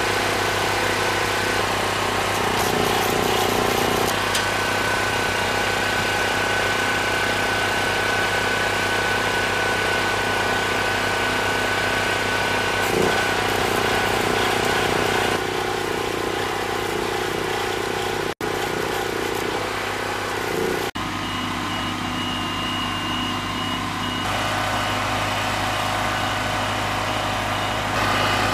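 An engine idling steadily with a constant low hum under a dense hiss, with the crackle of stick welding on steel mixed in. The sound dips out briefly twice past the middle.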